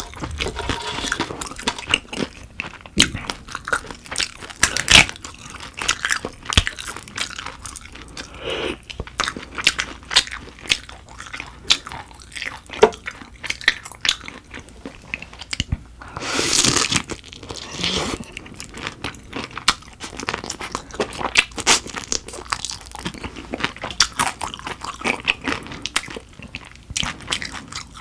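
Close-miked crunching and chewing of butter-grilled dohwa shrimp heads and shells: many sharp crackles with one longer noisy burst about halfway through.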